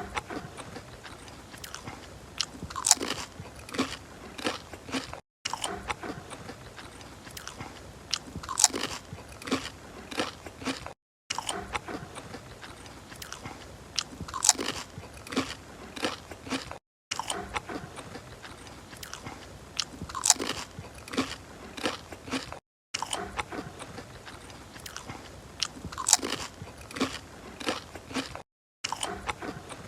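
Crunchy food being bitten and chewed close to the microphone, a loud crunching bite standing out among smaller chewing crunches. The same few seconds of eating repeat about every six seconds, each time after a brief silent gap.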